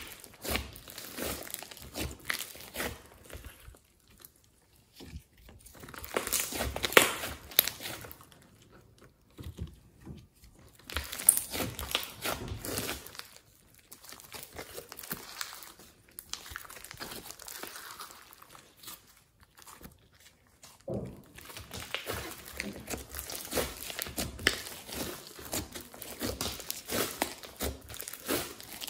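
Hands kneading and squeezing thick glossy slime mixed with clay: wet squishing with crackling and popping as trapped air bursts, coming in bursts with short pauses between squeezes.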